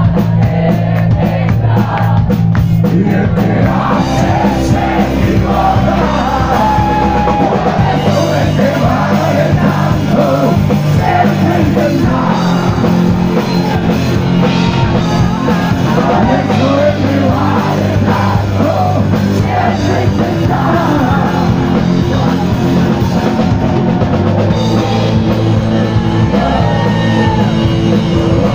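A rock band playing live and loud: distorted electric guitar, drum kit and a singer.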